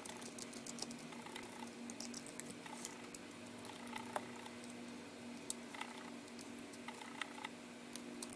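Scattered small clicks and taps of fingers handling and prying at the plastic inner case of a Sony HDR-AS20 action camera, at irregular intervals, over a faint steady hum.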